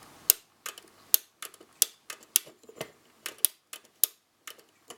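Sankyo LT108 flip clock being set by hand: its number cards flip over one after another, giving a quick series of sharp, uneven clicks, about two a second.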